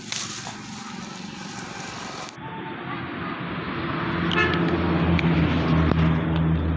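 A motor vehicle's engine droning steadily at one pitch, growing louder over the last few seconds. Before it comes a rustle of dry grass being handled.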